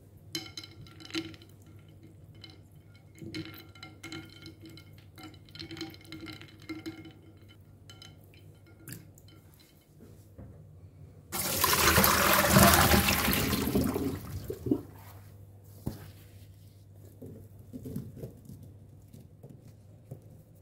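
Ice cubes and potato sticks clinking with a light ringing against a ceramic bowl of water. About halfway through, water is poured off in a loud rush lasting about three seconds, followed by soft handling sounds of the wet potato sticks.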